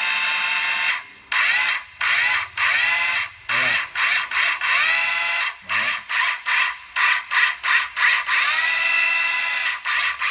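Makita 18V cordless circular saw, no blade fitted, running with no load: a high motor whine for about a second, then the trigger blipped in a dozen or so quick bursts, each spinning up with a rising whine, then a longer steady run near the end.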